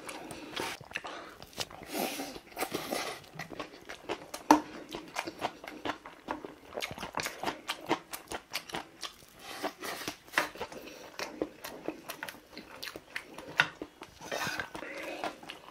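Close-miked chewing and wet mouth sounds of someone eating fried rice, with frequent sharp clicks of a wooden spoon and chopsticks against a stainless steel bowl.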